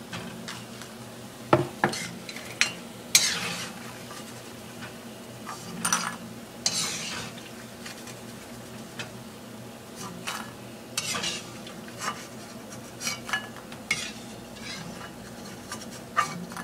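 Perforated metal skimmer scraping and clinking against a black kadai as finished, light-brown mathri are scooped out of hot oil, over a steady oil sizzle. The scrapes and clinks come irregularly, every second or two.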